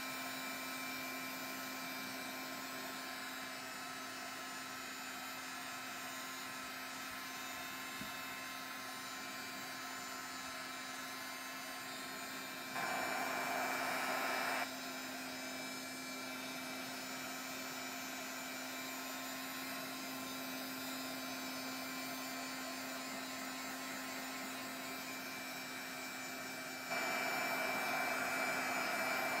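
Handheld craft heat gun blowing steadily with a motor hum as it dries wet stain on a painted card. It gets louder for about two seconds around the middle and again near the end.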